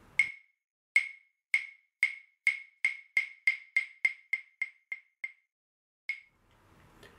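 A sound effect of sharp wooden clapper knocks that start slowly and speed up into a rapid run. One last single knock follows after a short pause.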